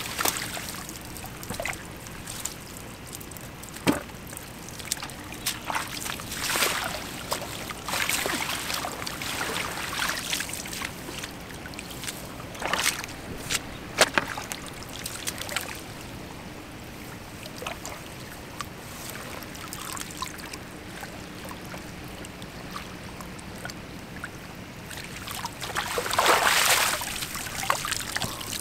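Hand dip net scooped through shallow muddy water: repeated splashes and sloshes, with water trickling and dripping from the mesh as it is lifted. The biggest splash comes near the end.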